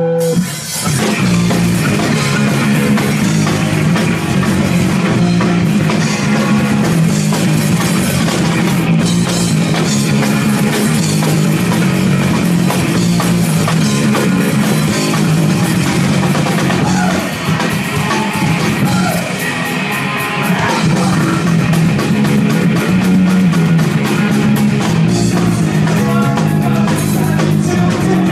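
Live rock band playing loud on electric guitar and drum kit. The full band comes in just after the start and plays on without a break.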